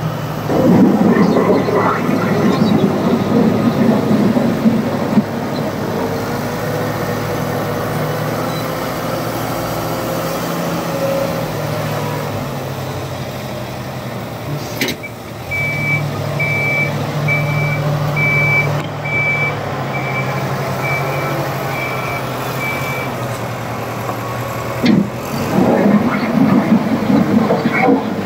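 Tata TL 340 wheel loader's diesel engine running under load, louder and rougher as it works near the start and again near the end. In the middle a reversing alarm beeps steadily, about one beep a second, for several seconds.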